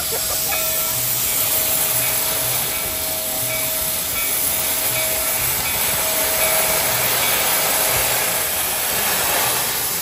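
Rio Grande Southern No. 41 narrow-gauge steam locomotive venting steam from low around its cylinders, a loud steady hiss, with a faint low pulse about twice a second underneath.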